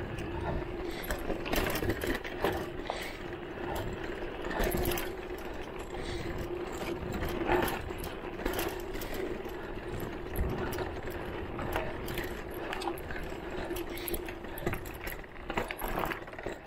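Electric mountain bike's motor whining steadily at one pitch while it drives the bike, with the frame and drivetrain rattling and knocking over a bumpy dirt single track.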